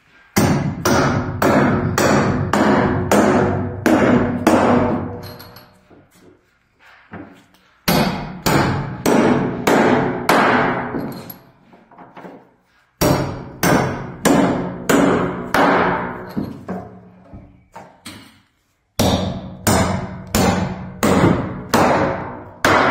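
Hammer driving nails into wooden floorboards: runs of sharp, ringing blows at about two to three a second, broken by short pauses between nails.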